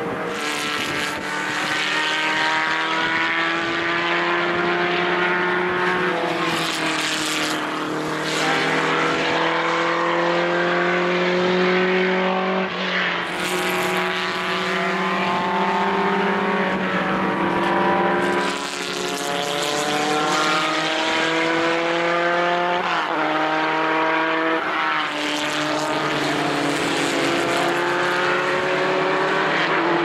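Several historic single-seater formula racing cars accelerating hard at high revs. Their engine notes climb in pitch and drop back at each upshift, several times over, with more than one engine heard at once.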